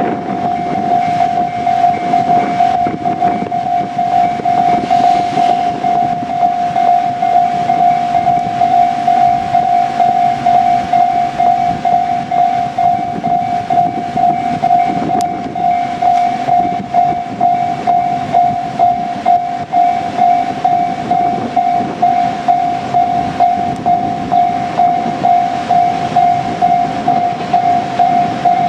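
Railway level crossing alarm ringing over and over at one steady pitch, with a JR Kyushu 817 series electric train running along the rails underneath it.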